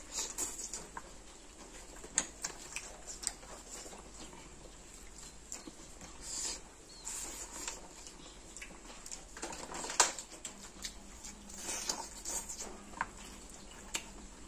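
Eating by hand: wet chewing and lip smacks, with fingers squishing and mixing rice and chicken curry on a banana leaf. Irregular small clicks and short smacking bursts, the loudest about two-thirds of the way through.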